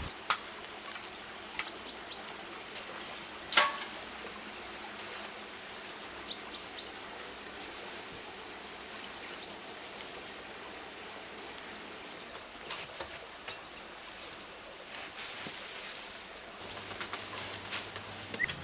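Quiet outdoor ambience: a steady hiss with a few brief high bird chirps in twos and threes, and scattered clicks, the sharpest a knock about three and a half seconds in.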